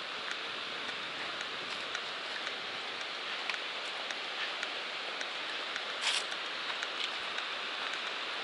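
Steady rushing of Jennings Creek's water below the bridge, an even hiss, with faint ticks of footsteps on the pavement.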